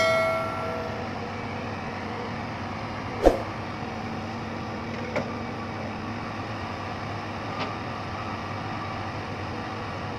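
Hitachi hydraulic excavator's diesel engine running steadily while it digs and loads soil into a dump truck, with one sharp clank about three seconds in and two lighter knocks later. A ringing chime fades out in the first second.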